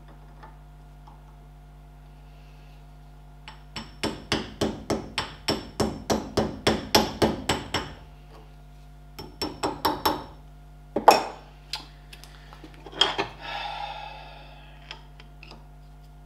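Small hammer tapping a steel split pin through the hub nut and spindle, the pin gripped in pliers. A quick run of light metal taps, about four a second for some four seconds, then a few more, one harder strike, and a last strike followed by a brief scraping.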